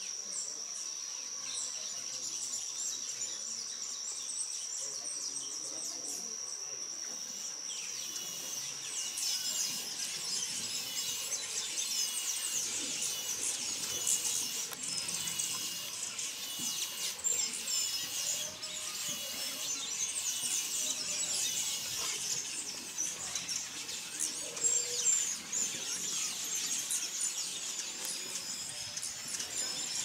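Outdoor nature ambience of birds and insects: a steady high-pitched note for the first several seconds, then many small birds chirping and calling in quick, overlapping bursts.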